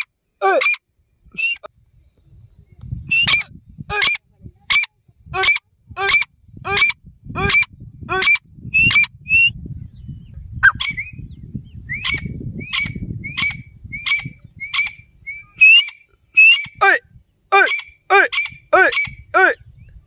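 Female grey francolin (teetar) calling: a long run of short, sharp notes at about two a second, some quieter and shorter in the middle stretch. A low rumble runs beneath much of it.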